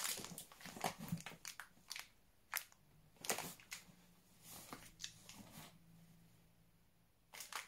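Plastic packet of dried green split peas being handled, crinkling and crunching in a string of irregular crackles that die away near the end.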